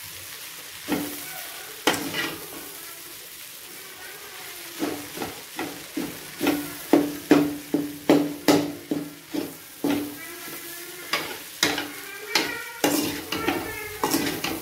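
A spatula stirs and scrapes crumbled idli and egg frying in an aluminium kadai. The blade knocks against the pan, which rings briefly after each strike, and the food sizzles under it. There are a couple of single knocks at first, then a steady run of about two knocks a second from about five seconds in.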